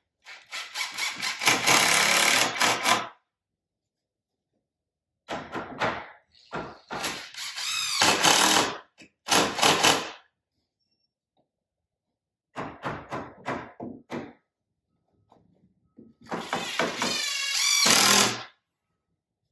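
Cordless driver driving screws at an angle to toenail a new wood window post into the framing, in four runs of a second to a few seconds each, with short silences between them. The motor's pitch rises and falls within the runs.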